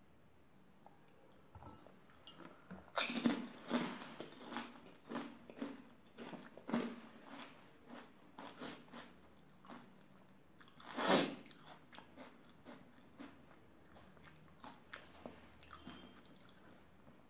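Crisp fried puri shell of pani puri, filled with spiced water, being bitten and chewed. A loud crunch about three seconds in, a run of smaller crunches, a second loud crunch a little past the middle, then softer crunching that tapers off.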